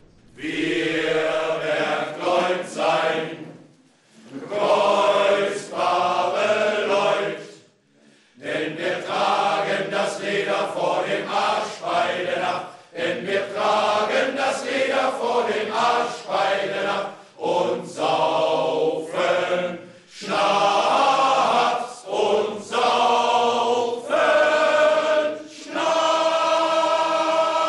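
Men's choir of older male voices singing together, in phrases broken by short pauses, ending on a long held note near the end.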